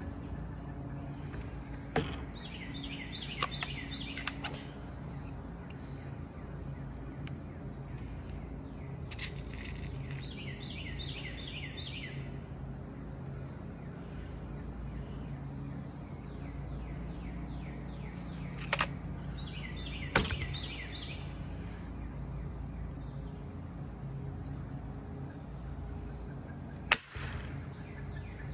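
Pellet rifle firing a few single sharp cracks, seconds apart, the loudest near the end. Between them a bird sings short, rapid trills, and a low steady background hum runs under it all.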